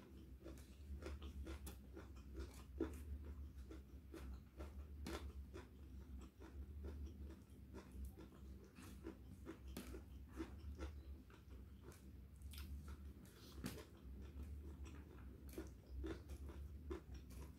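Close-miked eating: chewing and mouth clicks, with fingers gathering rice on a plate, making an irregular run of small clicks and taps over a steady low hum.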